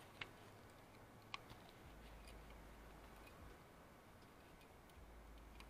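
Near silence, with a few faint, sharp clicks: one just after the start and two more about a second and a half in.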